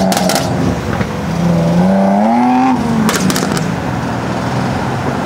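BMW M4 Competition's twin-turbo straight-six, fitted with upgraded Pure stage 2+ turbos and a catless downpipe, running under throttle with the revs climbing for about a second. When the throttle closes about 3 s in, the exhaust lets out a rapid volley of pops and crackles, with a few more pops near the start.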